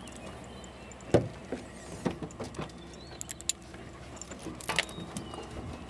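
Several sharp clicks, knocks and light metal rattles, the loudest about a second in, as a pickup truck's rear door and the dog crate inside are opened and a leash is clipped onto the dog.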